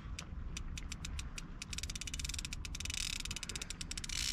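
Fishing reel clicking under a fighting catfish: spaced ticks that speed up into a fast, dense run of clicks about halfway through, the drag giving line as the fish pulls. A low rumble runs underneath.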